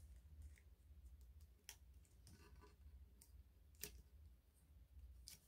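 Near silence with a few faint, sharp clicks of long fingernails picking and tapping at transfer tape on a tumbler, the loudest a little past the middle, over a low steady hum.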